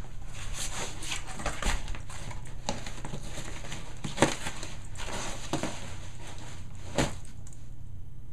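A dog chewing and tearing at cardboard: a run of crackling, crunching strokes, with two sharper crunches about four and seven seconds in, thinning out near the end.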